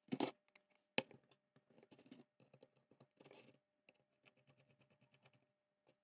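Small steel parts of a bench vice's quick-release mechanism, a spring-loaded latch on a steel bar, clicking and scraping as they are handled and fitted together on a wooden bench. There are two sharp metallic clicks near the start and about a second in, then a run of lighter ticks and scrapes.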